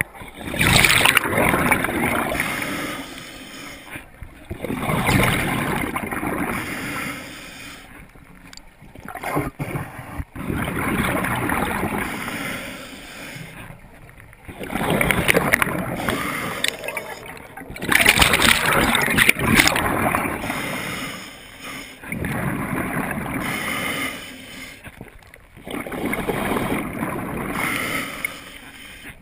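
A scuba diver breathing through a regulator underwater: a long rushing breath followed by a gurgling burst of exhaled bubbles, repeating in a slow cycle about every four seconds.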